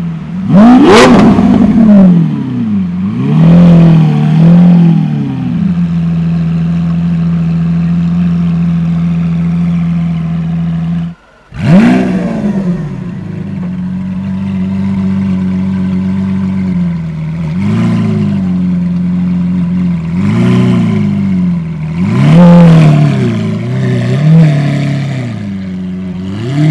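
Lamborghini Aventador Roadster's V12 with a custom aftermarket exhaust, idling and repeatedly blipped: short sharp revs that climb and fall back quickly, with a steady idle between them. The sound cuts out briefly about eleven seconds in, just before a hard rev.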